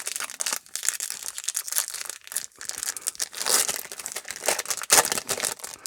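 Crinkling and tearing of a baseball card pack wrapper being opened by hand, a continuous crackle with louder rips about three and a half and five seconds in.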